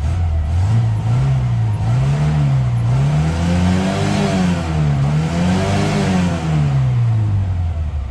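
Moskvich 2140's four-cylinder engine, already warmed up, revved up and down several times in a row. The highest revs come in the middle, and it drops back toward idle near the end.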